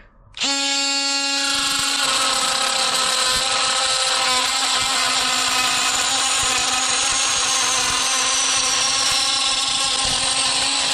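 Dewalt DCS356 brushless oscillating multi-tool starts up with a steady high buzz. About two seconds in, an aftermarket metal-cutting blade begins grinding through galvanized steel unistrut, and tool and cut then run steadily until the tool stops near the end.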